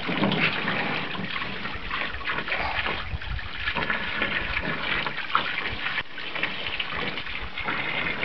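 Water from a garden hose spraying and gushing, splashing over a child's face and body and into a shallow plastic wading pool, steady with irregular splashes.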